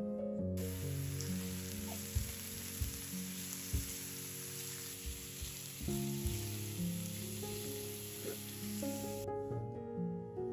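Chopped garlic and herbs frying in oil in a pan: a steady sizzle as they are stirred with a silicone spatula, with a few light knocks. The sizzle starts about half a second in and cuts off abruptly near the end, with piano music underneath.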